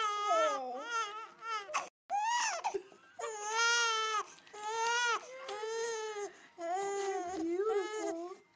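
A newborn baby crying: a string of high, wavering cries with short breaths between them. The sound drops out for an instant about two seconds in.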